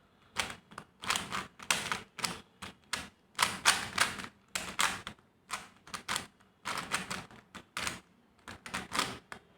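A 3×3 Rubik's cube being scrambled by hand: quick, irregular clicking and clacking of the layers turning, in short bursts with brief pauses between.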